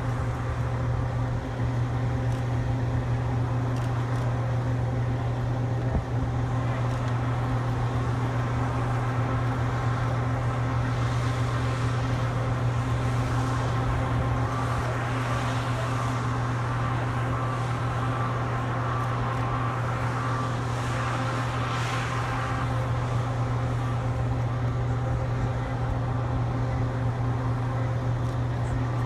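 Steady low drone of an idling engine or generator, an unbroken hum with overtones. A brighter hiss swells twice in the middle.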